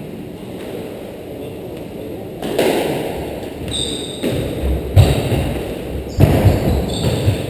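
Squash rally: the rubber ball smacking off rackets and the court walls in a string of sharp knocks, with thuds of running feet on the wooden floor and short high shoe squeaks. The knocks start about two and a half seconds in, and the loudest comes near the middle.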